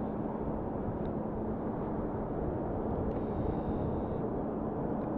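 Distant Boeing 737-200 on its takeoff roll, its Pratt & Whitney JT8D turbofans at takeoff thrust giving a steady low rumble with a constant low hum through it.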